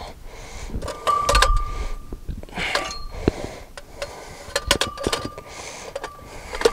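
Metal clutch parts and tools being handled: a series of clinks and knocks, several of them followed by a short metallic ringing tone, with rustling between them.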